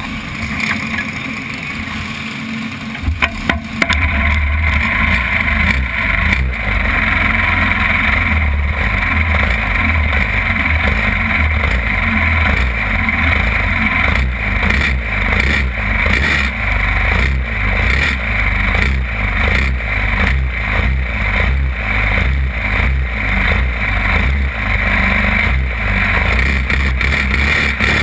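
Champ kart engine fires up about four seconds in, after a few sharp clicks, and then runs loud and steady with a rhythmic low pulsing.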